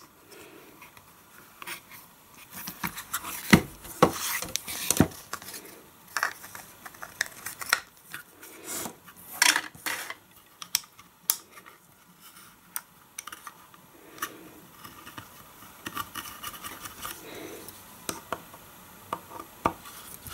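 Handling sounds of checkered wooden grip panels being fitted onto an all-metal Luger P08 BB pistol and held by the grip screw: irregular clicks, taps and light scraping of wood on metal, with a handful of sharper clicks between about three and eleven seconds in.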